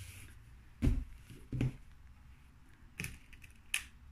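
Hands handling and smoothing curtain fabric and lining on a table: a couple of soft knocks about a second in, then a few light clicks and rustles around three seconds.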